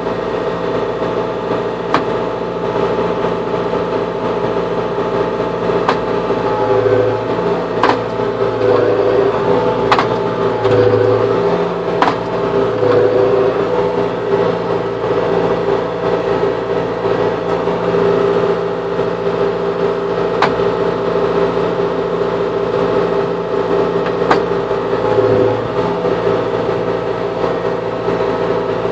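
Tractor engine running steadily, its pitch shifting briefly a few times, with occasional sharp clicks.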